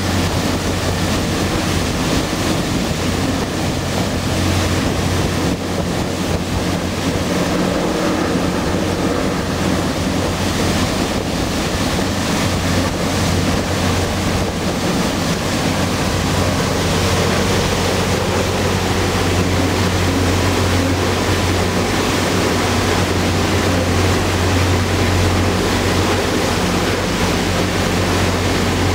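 Passenger boat under way at speed: a steady low engine drone under the rush of its churning wake, with wind buffeting the microphone.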